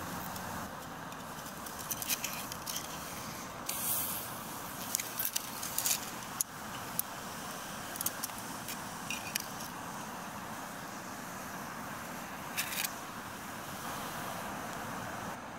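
Whole scallops grilling in their shells on a wire grate: a steady sizzle of the juices boiling in the shells, broken by scattered sharp pops and crackles.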